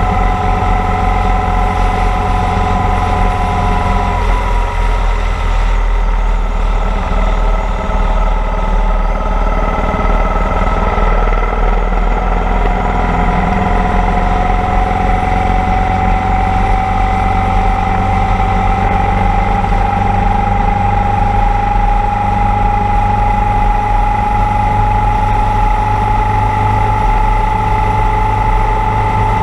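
Motorcycle engine running at cruising speed under loud wind rush on the helmet. The engine note drops about four seconds in, then rises slowly and steadily through the second half as the bike picks up speed.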